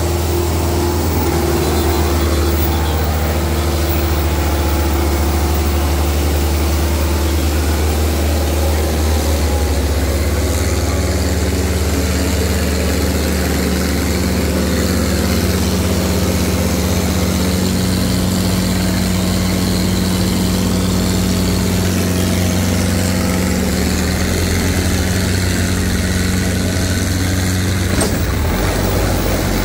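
Tractor diesel engine running steadily, its low note shifting about two-thirds of the way through.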